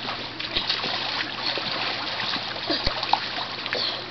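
Swimming-pool water splashing and sloshing as two children wade and play in it, a steady wash with small irregular splashes.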